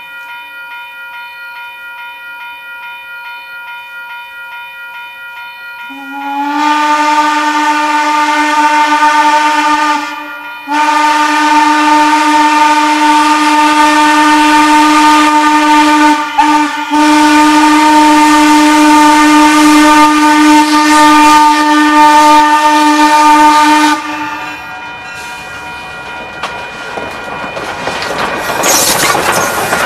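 Steam whistle of the 0-4-0T tank locomotive Jeddo Coal #85. After a few seconds of a quieter steady tone, it blows a loud, steady chord in three long blasts with short breaks between them, as for a grade crossing. After the whistle stops, hissing steam and the rolling train grow louder near the end.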